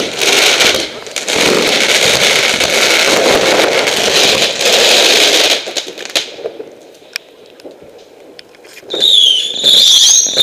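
Firework fountains spraying sparks, a loud dense hissing crackle for about the first five and a half seconds that then dies down to a few scattered crackles. About nine seconds in, a high whistling firework starts, its pitch wavering and dipping.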